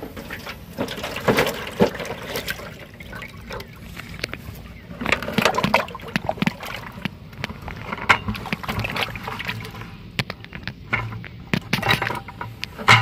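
Water sloshing and splashing in a bucket of caught fish as it is tipped out into a foil tray, with irregular knocks and louder splashes in bursts.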